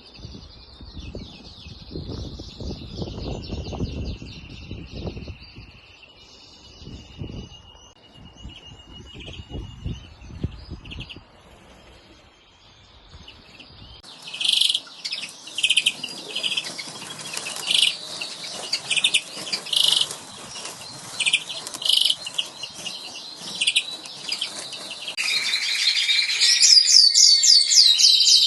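Small cage birds chirping and twittering in an indoor bird room. About halfway through the calls become louder and busier, with a fast, loud song near the end.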